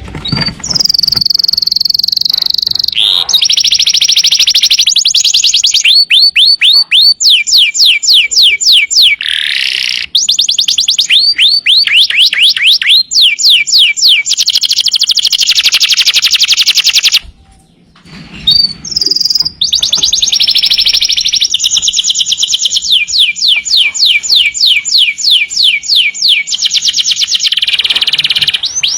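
Domestic canary singing a long, loud song of high, rapid trills and runs of quickly repeated downward-sweeping notes, with a brief pause a little past halfway.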